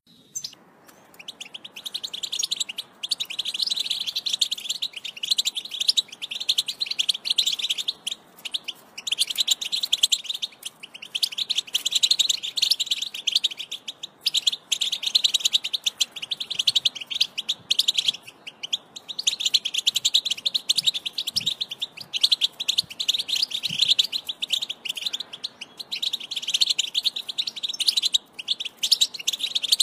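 European goldfinch singing a Wedani-style song: a long run of rapid, tinkling twitters in phrases of a second or a few seconds, with short breaks between them.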